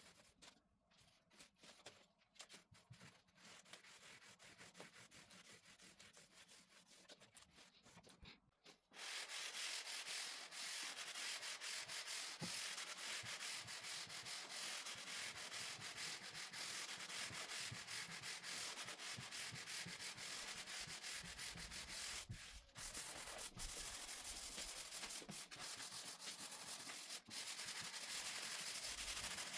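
Sanding on solid oak. Faint scratching for the first several seconds, then a steady, louder sanding hiss from about nine seconds in that breaks off briefly twice.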